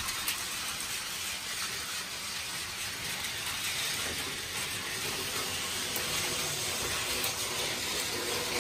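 Battery-powered plastic toy trains, a Thomas the Tank Engine among them, running on plastic track: a steady hissing whir of their small motors and wheels.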